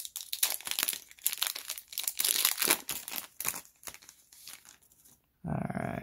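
Foil Pokémon card booster pack wrapper being torn open and crinkled as the cards are slid out, a dense crackling that thins out and stops about four and a half seconds in.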